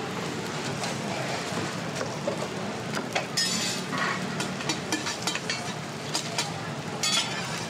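Metal cooking utensils clinking, tapping and scraping at a scallion pancake griddle, with a few short hissing scrapes over a steady background din.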